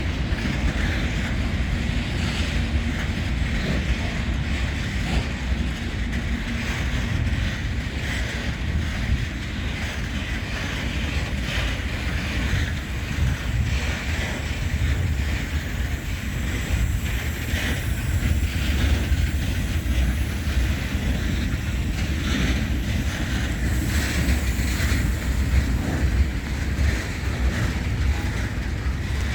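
Freight train of Eas open wagons rolling past with a steady low rumble of wheels on rail and irregular clicks, with wind on the microphone.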